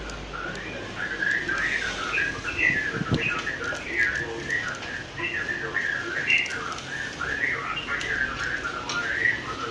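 Whistling: a quick, wavering tune that jumps up and down in pitch without pause, with a few faint clicks and a low thump about three seconds in.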